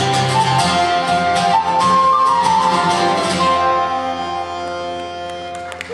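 Irish folk band playing a tune on flute, acoustic guitar and mandolin. Just past halfway it settles onto a final held chord that rings and fades, and applause starts at the very end.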